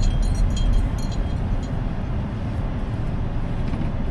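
Steady low rumble of a car on the move, engine and road noise from inside the cabin, with a few faint clicks in the first second.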